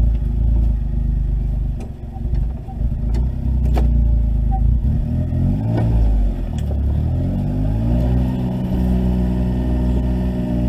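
Side-by-side utility vehicle's engine running just after being started, its pitch dipping and rising about halfway through as it revs, then running steadily.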